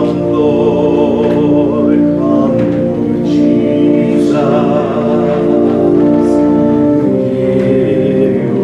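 Voices singing a hymn with instrumental accompaniment, held notes with vibrato.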